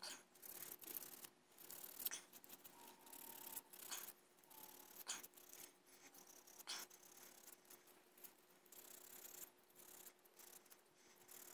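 Faint, irregular scratching of abrasive paper rubbed by hand along the edges of a small aluminium piece, scrubbing off surface oxidation.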